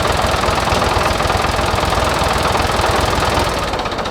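Tractor engine running hard under load as it pulls on a stone stable wall, with a rapid low throb; the sound falls away shortly before the end.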